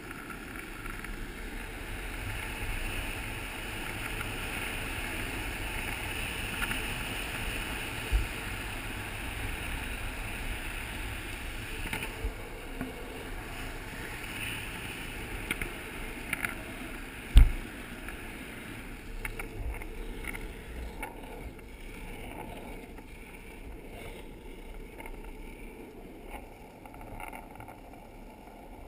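Longboard wheels rolling on asphalt: a steady rolling rumble with wind on the microphone, broken by a few sharp knocks, the loudest about seventeen seconds in.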